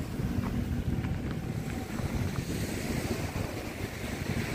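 Wind buffeting the microphone in uneven gusts.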